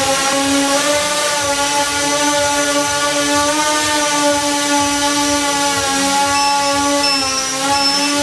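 X8 octocopter with eight brushless motors in coaxial pairs hovering, its motors and propellers giving a steady buzzing hum whose pitch wavers slightly as it holds position. From about six seconds in, a short high beep repeats about twice a second: the low-battery alarm as the flight pack runs out.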